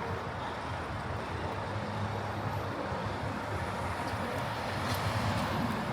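Steady city street traffic on a busy avenue: a low rumble of passing vehicle engines and tyres, getting a little louder near the end as a vehicle passes close.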